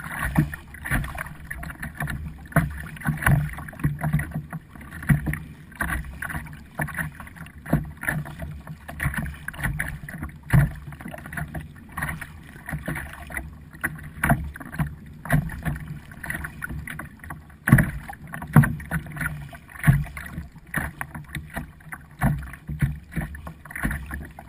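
Kayak paddle strokes dipping and splashing in the water in a steady rhythm, one to two strokes a second, over a low rumble of water and wind on the camera.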